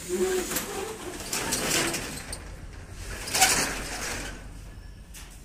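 Domestic pigeons cooing briefly near the start, over bursts of rattling and scraping. The loudest clatter comes about three and a half seconds in.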